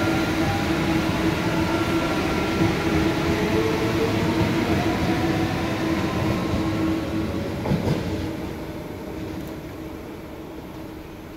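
KLIA Ekspres/Transit electric train passing at speed on the near track: loud steady running noise from the wheels on the rails, with a held tone under it. A couple of sharp clacks come about eight seconds in, then the sound fades as the train pulls away.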